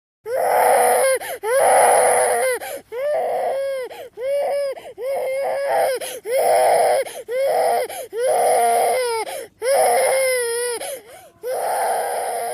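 A baby crying: about ten wailing cries, each rising and falling in pitch, with short catches of breath between them. The crying cuts off abruptly near the end.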